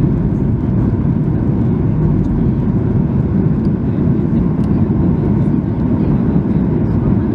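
Steady low rumble of airflow and engine noise inside the cabin of a Boeing 737-800 on final approach, flaps extended, just above the runway before touchdown.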